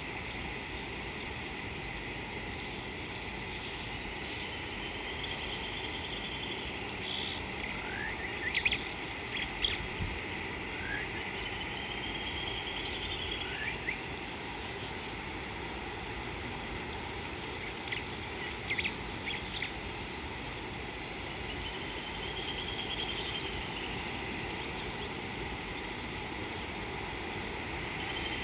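Natural bush chorus: a steady high insect hum with short high chirps repeating about once a second, long trills rising and falling now and then, and a few quick rising whistles from birds.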